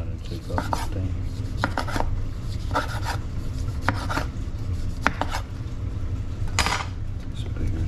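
Chef's knife slicing lemons on a wooden cutting board: a string of short, unevenly spaced knocks as the blade cuts through and hits the board, with a longer scraping sound near the end, over a steady low hum.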